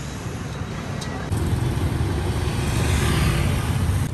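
Street traffic, mostly motorbike engines going past. About a second in a vehicle passes close and louder, and the sound cuts off suddenly at the end.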